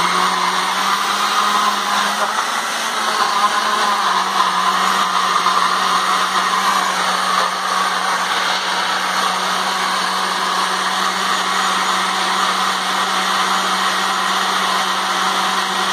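Salter Nutri Pro personal blender running at a steady speed throughout, its motor hum under an even whir as it blends frozen berries, banana, oats and almond milk into a smooth smoothie.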